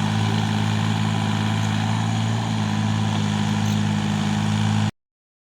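Excavator's diesel engine running steadily with a deep, even hum. The sound cuts off abruptly near the end.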